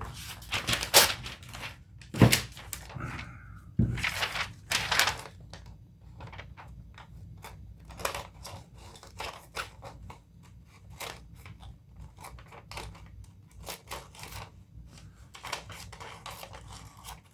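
Small scissors of a Gerber Truss multi-tool cutting a sheet of paper: a run of short crisp snips with paper rustling, and a few louder knocks in the first five seconds as the paper and tool are handled.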